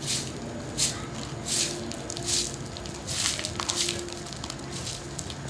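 A long-handled broom sweeping a concrete yard: a series of brisk swishes, about seven strokes, one every three-quarters of a second or so.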